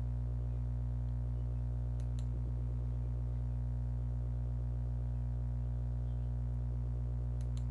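Low, steady electrical hum throughout, with two quick pairs of computer mouse clicks, about two seconds in and near the end.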